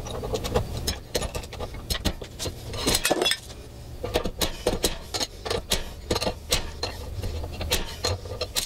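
Irregular sharp metal clanks and clinks, a few a second, from a puller rod being worked against a Mercury outboard's bearing carrier, which is seized in the lower unit. A low steady hum runs underneath.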